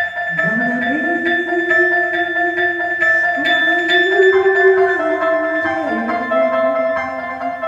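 A live band playing an instrumental passage. Sustained high notes ring over a lower melody line that slides up about half a second in and then glides between long held notes.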